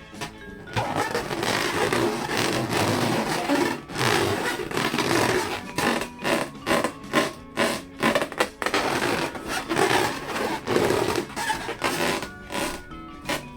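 Balloons being rubbed and squeezed by hand, giving an irregular scraping, rubbing noise broken by many short pauses.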